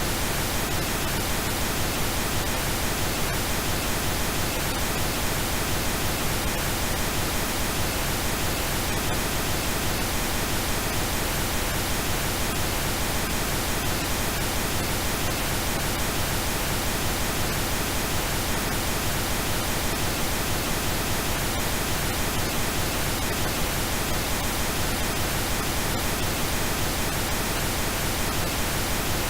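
Steady synthetic pink noise: an even, unchanging hiss spread across the whole range from deep to high.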